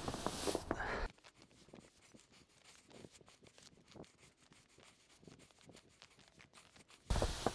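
Push broom sweeping snow off concrete: a loud scraping brush stroke in the first second, then faint, scratchy bristle strokes, and a loud stroke again near the end.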